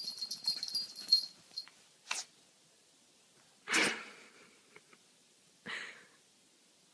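A puppy sneezing: a short sneeze about two seconds in, a loud sneeze near the middle and a smaller one near the end. Before them, a quick run of high-pitched squeaks in the first second or so.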